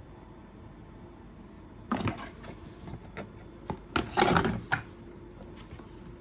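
Packaging and box contents being handled: a run of knocks, taps and rustles starting about two seconds in and dying away a little before the end.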